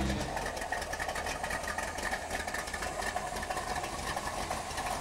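A car engine idling, a steady, fast, even mechanical clatter.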